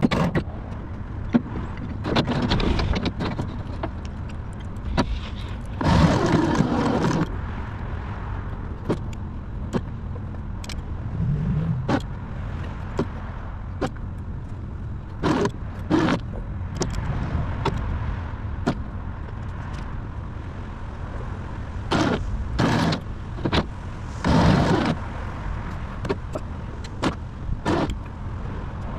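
Electric winch pulling a car by its cable in short runs of about a second each, several times, with sharp clicks and clanks of the cable and hitch in between.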